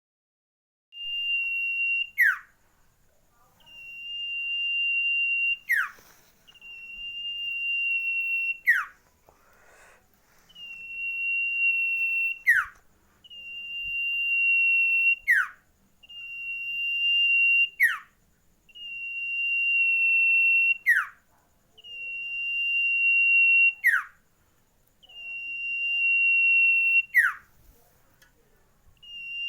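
Common iora singing its long whistled song: a steady high note held for about two seconds and getting louder, then a quick downward slur, repeated about every three seconds.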